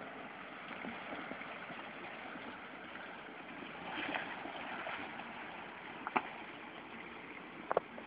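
Nissan Patrol GU four-wheel drive wading slowly through a shallow, rocky river crossing: steady rush of water churned by the wheels over the engine running. The sound swells briefly about four seconds in, and two short, sharp knocks come near the end.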